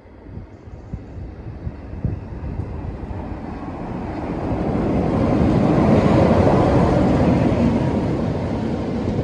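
Class 47 diesel-electric locomotive, its Sulzer twelve-cylinder engine running as it passes close by at low speed. The rumble builds as it approaches and is loudest about six seconds in as the locomotive goes by. The coaches then follow on the rails.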